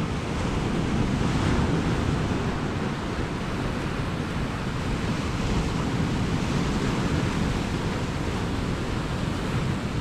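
Sea surf washing against rocks, a steady rush that gently swells and eases, with wind buffeting the microphone.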